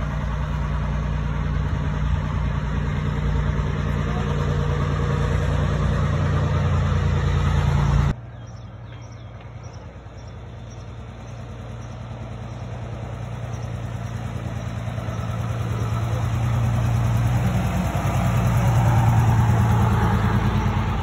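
Vintage double-decker bus engine running steadily with an even low beat. After an abrupt cut, another vehicle engine is heard drawing closer, growing louder over several seconds.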